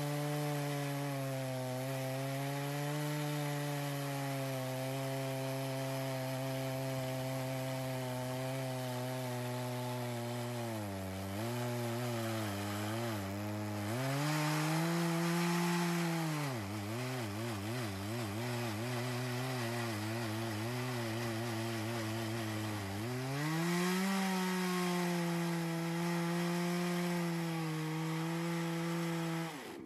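Farmertec G660 92cc two-stroke chainsaw in a chainsaw mill, cutting lengthwise through a thick cherry slab at high throttle. Its note sags and wavers several times as the chain bogs under the heavy load, then climbs back. The engine sound drops away sharply near the end.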